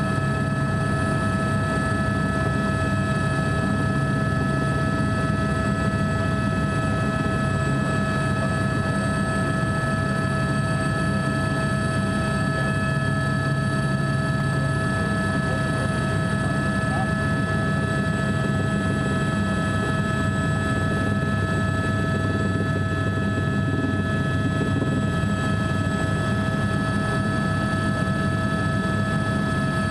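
Helicopter running steadily in flight: a constant low drone with several fixed high whining tones above it.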